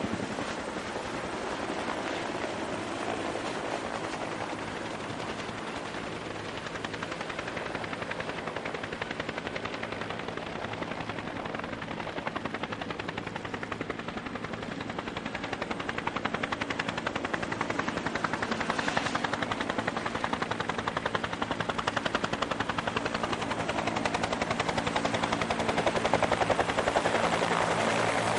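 Military helicopters, a Bell UH-1J and then a UH-60JA Black Hawk, hovering low and edging closer. Their rotors make a rapid, continuous chop over a steady turbine hum, and the sound grows louder over the second half as the UH-60JA nears.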